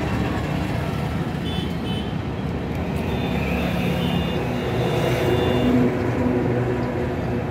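Steady rumble of running vehicle engines and traffic, with a few faint higher tones about halfway through.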